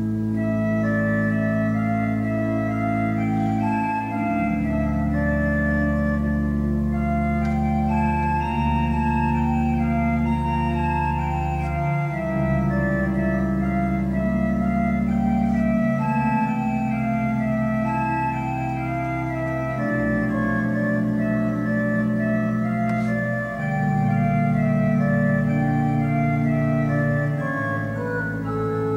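Organ playing slow, sustained chords, the bass note changing about every four seconds beneath a moving upper line.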